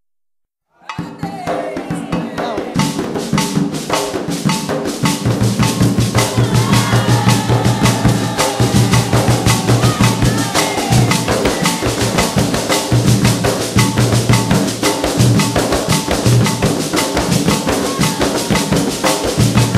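Afro-Brazilian ritual drumming: drums and other percussion playing a fast, dense, steady rhythm, cutting in abruptly about a second in.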